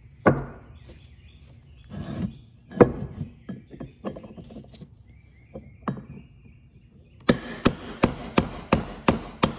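Hammer striking a seal driver to knock a new pinion seal deeper into a quick-change rear end housing: a few scattered knocks, then a quick even run of strikes, about three a second, over the last two seconds or so.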